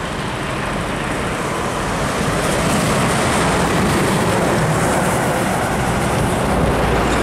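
Hino 500 truck's diesel engine running as the truck passes close by, growing louder over the first three seconds and staying loud.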